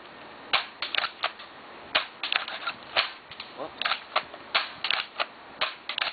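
Homemade airsoft masterkey, a cheap spring-powered pump shotgun, being racked and fired over and over: an irregular run of sharp clicks and snaps, two to four a second.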